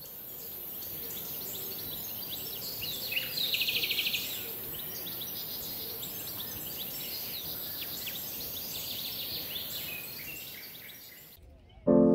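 Outdoor garden ambience: many small birds chirping over a steady high hiss, with a short, buzzy, rapid trill about three seconds in. Music starts right at the end.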